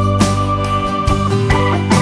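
Background music: a pop track with sustained keyboard chords and a steady beat.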